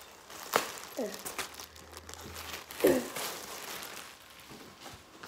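Clear plastic wrapping crinkling and rustling as a backpack is pulled out of it, with sharp crackles, the loudest about half a second and three seconds in. A couple of short falling vocal sounds come in around the first and third seconds.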